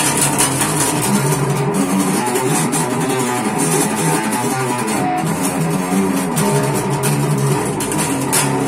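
Electric bass guitar played in a continuous run of plucked notes, a sound test of a bass whose cracked neck has just been screwed and glued with superglue.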